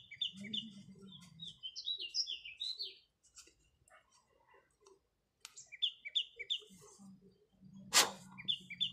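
Small birds chirping in quick runs of short, high notes that come and go, with one sharp knock about eight seconds in.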